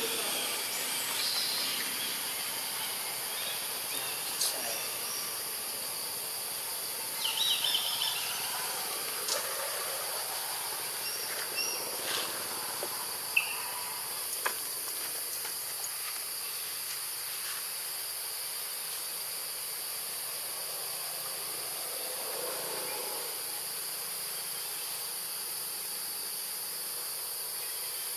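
Steady, high-pitched drone of insects, with a few short chirps and sharp clicks scattered through it.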